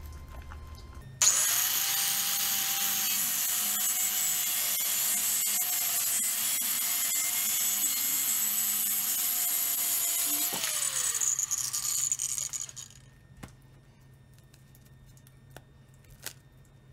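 DeWalt DWC860W hand-held wet/dry tile saw starting up about a second in, its diamond blade cutting through a sheet of thin metal and glass mosaic backsplash tile with a loud, steady high whine. Near the end the motor is switched off and winds down with falling pitch. A couple of faint clicks follow.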